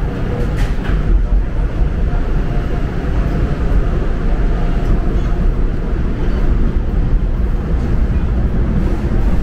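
Steady low rumble of a subway train running through the station.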